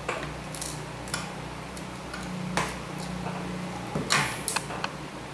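A handful of light clicks and taps from the hard plastic housing parts and circuit board of a Yamaha Nouvo SX motorcycle instrument cluster being handled and fitted together, over a low steady hum.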